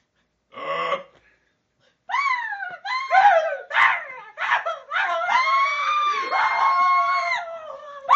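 A young man's high-pitched falsetto squeals and wails made as a comic noise, sliding up and down in pitch, with one long held note that drops off near the end. A short breathy huff comes before them.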